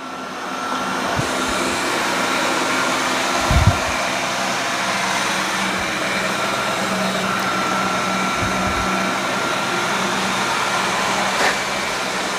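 Robot vacuum cleaner running with a steady whirring hum of its suction motor and brushes, with a couple of short low thumps along the way.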